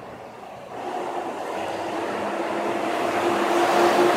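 A motor vehicle's engine hum drawing nearer and growing steadily louder, starting about a second in, with a steady droning tone over the rumble.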